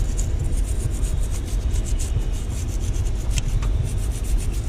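Toothbrush scrubbing crusted corrosion off a wet car battery terminal: quick back-and-forth bristle rubbing over a low steady rumble.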